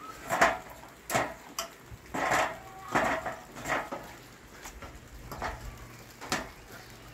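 Work boots climbing an aluminium ladder: a run of metallic clanks, one for each step on a rung, about one a second with a short pause partway up.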